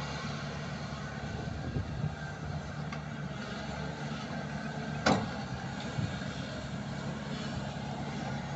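Volvo excavator's diesel engine running steadily, with a sharp knock about five seconds in and a few fainter knocks.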